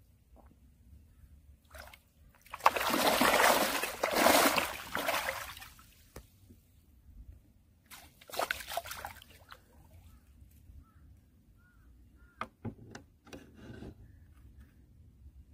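Water sloshing and pouring through the mesh of a fishing keep net as it is dipped into and lifted out of the water. A loud spell of splashing starts about three seconds in and lasts about three seconds, a shorter one follows near the middle, and a few light knocks come near the end.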